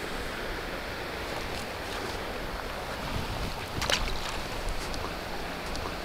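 Steady rushing of creek water, with a short clatter a little after halfway.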